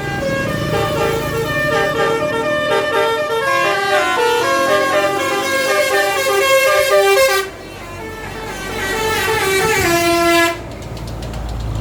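Bus telolet horn playing a multi-tone melody of quick stepping notes for about seven seconds, then, after a brief break, a second shorter phrase that cuts off abruptly. A low engine rumble sits underneath.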